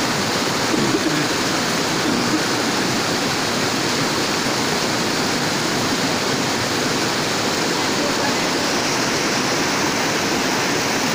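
Rushing white water of a rocky stream pouring over and between boulders, a steady even rush with no let-up.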